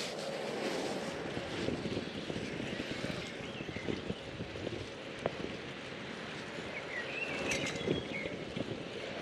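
Bicycle riding noise: steady wind on the microphone and tyre rumble, with scattered small clicks and rattles.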